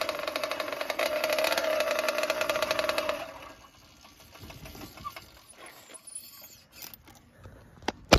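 Motorized bicycle's RDM stage 6 Piaggio 79cc two-stroke engine running steadily, then cutting off suddenly about three seconds in. After that only faint rustling, with a couple of sharp clicks near the end.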